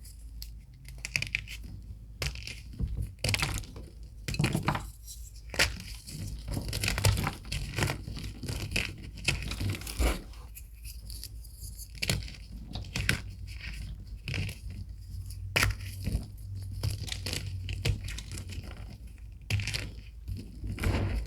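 Reformed gym chalk being crushed and crumbled, giving a run of irregular crisp crunches and crackles.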